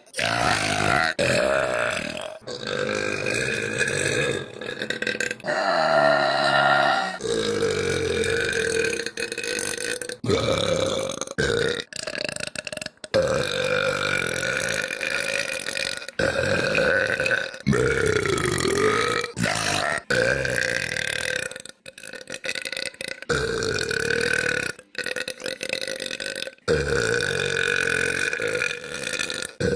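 A girl's long, drawn-out burps, one after another with short breaks between them, several lasting a few seconds each.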